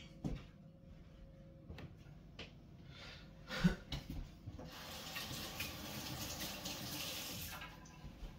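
Water running from a kitchen tap for about three seconds, then shut off, after a few light knocks and a thump.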